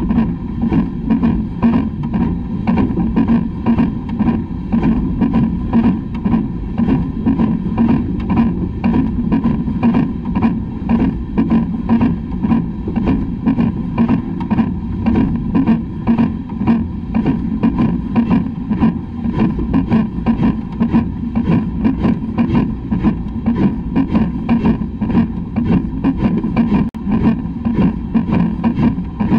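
LMS Black 5 two-cylinder steam locomotive running under steam, its exhaust beats coming in an even rhythm of about three a second over the low rumble of the wheels on the track.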